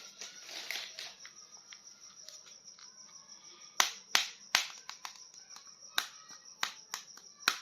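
Sharp, irregular clicks and taps of a plastic action figure being handled. It is soft for the first few seconds, then a string of louder clicks follows over the second half.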